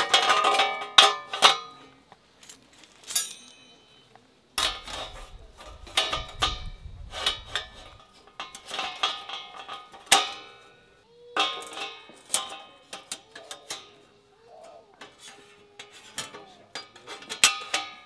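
Thin steel panels and grate of a folding fire pit clinking and clanking as they are slotted together, each knock ringing briefly, in clusters of rattling metal.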